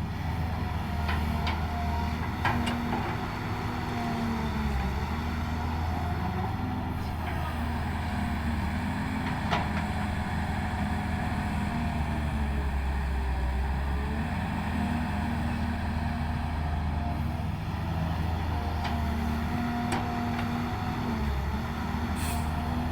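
Diesel engine of heavy earthmoving machinery running steadily under varying load, with a few sharp clanks now and then.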